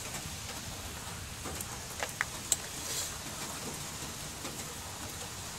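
Steady rain hiss, with a few light metallic clicks about two to three seconds in from a small wrench working a battery terminal clamp bolt.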